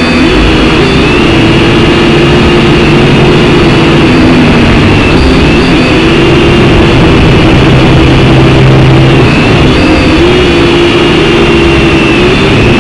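Syma X5C quadcopter's small coreless motors and propellers whining in flight, the pitch wavering up and down as the throttle changes.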